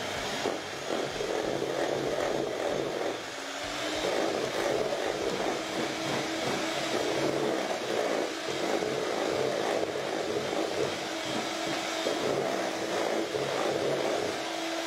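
Handheld electric mixer running, its beaters whirring through a creamy butter, sugar and egg batter in a stainless steel bowl. The motor's pitch rises a little about three to four seconds in and then holds steady.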